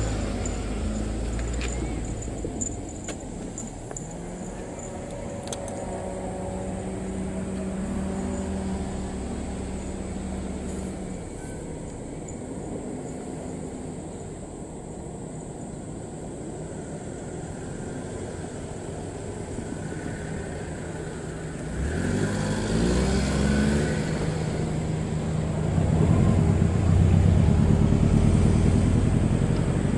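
JR 719 series electric multiple unit running, with a steady motor hum and whine. About 22 seconds in the whine rises in pitch and grows louder as the train accelerates, and it is loudest near the end.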